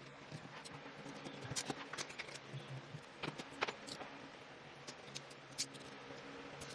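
Faint, irregular light clicks and taps of hands handling small parts of a graphics card during thermal pad replacement, over a faint steady low hum.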